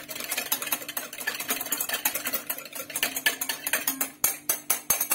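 Wire whisk beating eggs and sugar in a glass bowl: rapid clicking and rattling of the wires against the glass as the sugar is whisked until it dissolves.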